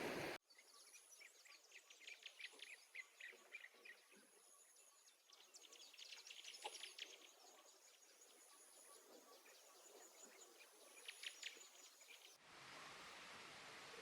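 Faint birds chirping in quick runs of short notes, with a thin, high insect trill repeating in short stretches behind them. About twelve seconds in, a steady low hiss comes in.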